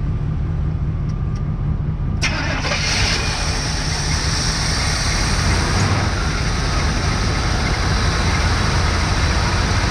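A 1986 Chevrolet truck's carbureted gasoline engine running steadily with the hood open, just after being brought back from a no-spark condition, its cylinders still a little flooded from long cranking. A sharp click comes about two seconds in, after which the running sounds brighter and fuller.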